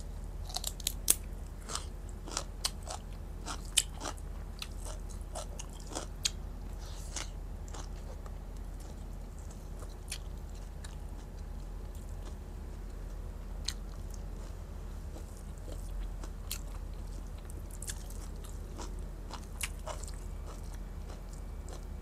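Close-up chewing of raw leafy greens and rice: short wet crunches and mouth clicks, thick in the first few seconds and then sparser, over a steady low hum.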